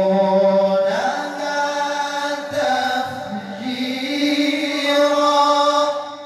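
A man's solo Quran recitation in the melodic mujawwad style, with long held notes whose pitch glides and rises in ornamented runs.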